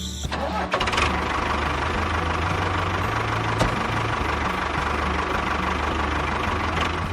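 Construction-machine engine running steadily, starting up about half a second in.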